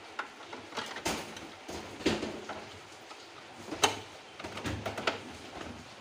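Irregular knocks, taps and clatter, a dozen or so sharp hits spread unevenly, the loudest about four seconds in.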